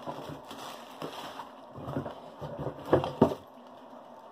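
Handling noises as a parcel is unpacked and its contents moved about, with scattered knocks and two sharp thumps close together about three seconds in.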